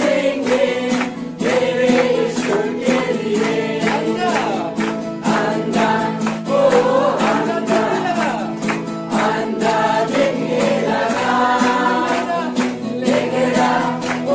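Music: a group of voices singing together over a steady beat.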